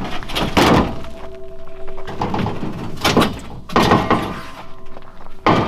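A tall steel oxygen cylinder being tipped and shifted by hand in a pickup's metal bed, knocking and scraping against the bed and bed rail in several heavy clatters.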